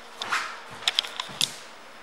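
A soft rustle, then a few short, sharp clicks about a second in.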